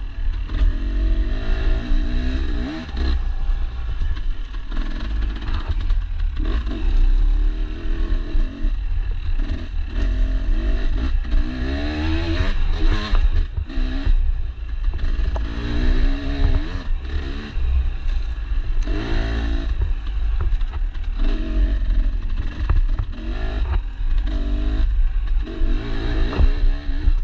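Dirt bike engine being ridden on a rough trail, its pitch rising and falling again and again as the throttle opens and closes, over a heavy low rumble. Short clattering knocks from the bike running over the uneven ground come through all along.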